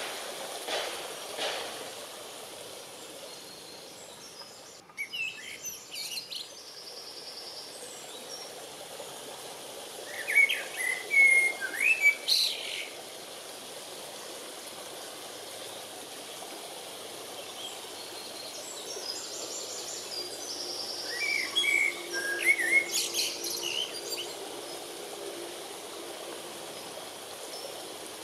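A songbird singing three short bouts of high chirps and trills, about every eight to ten seconds, over a steady background hiss.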